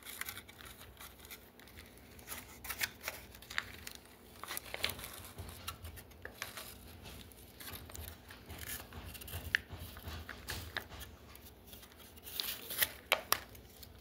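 Dunkaroos snack packaging crinkling and tearing as it is opened, in irregular crackles with a louder flurry near the end.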